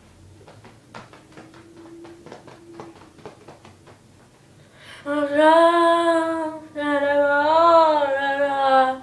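A boy singing alone in long, loud held notes with pitch wobbles, starting about five seconds in. Before that, soft humming and a few faint clicks.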